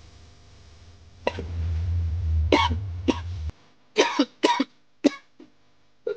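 A man coughing in a string of short, harsh coughs after a hit from a disposable vape. A low rumble runs under the first few coughs and cuts off suddenly partway through.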